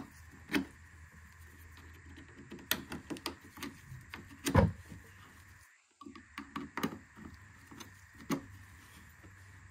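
Flathead screwdriver prying and sliding small screw clips off a plastic headlight assembly: scattered clicks, scrapes and light knocks, the loudest knock about halfway through.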